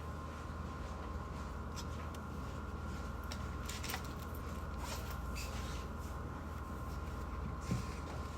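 Study cafe room ambience: a steady low hum with a faint constant whine, and scattered soft clicks and small handling noises, with a soft knock near the end.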